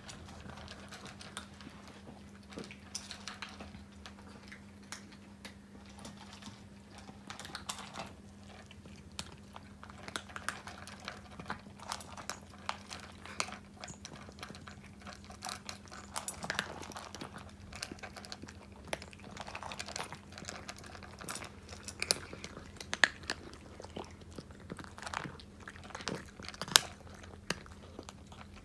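Two cats, a Russian Blue and an American Shorthair, chewing dry kibble from their bowls: many small irregular crunches, with a faint steady hum underneath.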